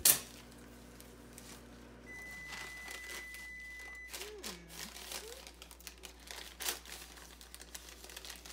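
Paper and plastic packaging rustling and crinkling in the hands as a small gift is unwrapped, in short irregular bursts that come more often in the second half.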